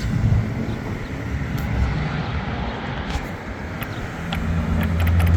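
Traffic noise from vehicles passing at a street intersection, with a steady low engine hum building up about four seconds in.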